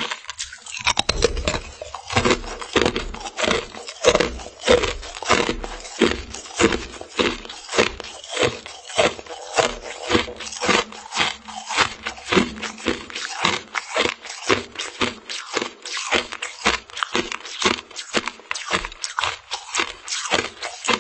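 Close-miked chewing of a frozen mermaid-tail treat: a steady run of crisp crunches, about two a second, as the icy piece is bitten off and ground between the teeth.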